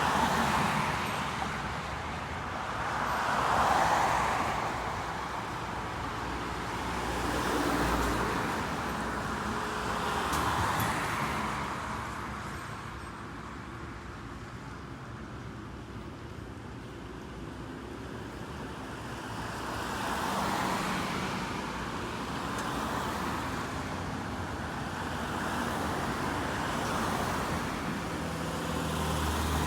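Road traffic: vehicles passing one after another, each swelling and fading, with a quieter lull around the middle.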